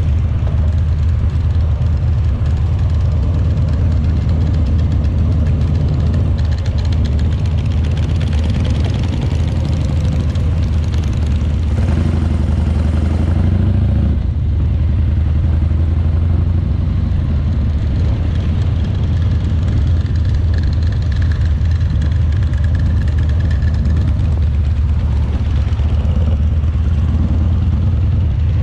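Harley-Davidson Shovelhead V-twin engine running steadily.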